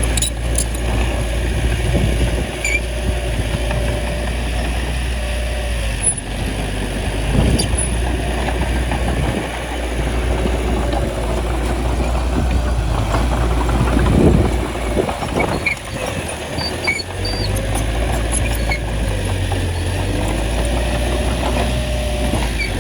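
Small crawler bulldozer's diesel engine running steadily under load as it pushes soil, with a few knocks from the machine, the loudest about fourteen seconds in.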